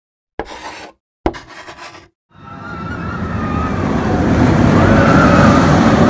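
Intro sound effects: two short sharp hits, then a rushing rumble of a roller coaster train approaching that swells steadily over several seconds, with a faint wavering squeal over it.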